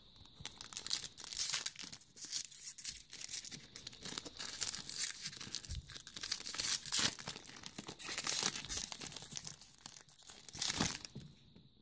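Foil wrapper of a Select Footy Stars trading card pack being torn open and crinkled by hand: a dense, crackling rustle with several louder rips.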